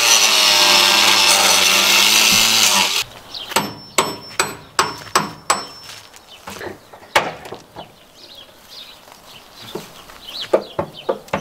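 Angle grinder cutting through the steel side skin of a school bus: a loud, steady whine for about three seconds that stops abruptly. Then a string of sharp metallic taps, about two a second at first and sparser later, as a hammer and a yellow-handled tool work the cut metal open.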